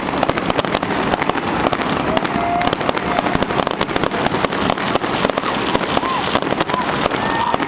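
Fireworks display: aerial shells bursting overhead, with a dense, continuous run of sharp cracks and bangs in quick succession.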